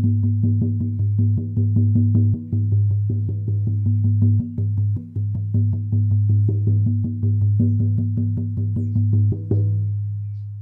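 Buffalo-skin frame drum on an oak frame, beaten in a fast, steady rhythm of about five strokes a second, each stroke giving a deep low tone. About nine and a half seconds in the beating stops and the drum rings out, fading away.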